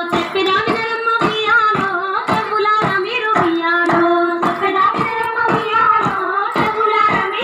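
Singing of a Bathukamma folk song, a sustained melody in high voices, over group hand claps keeping a steady beat of about two to three claps a second.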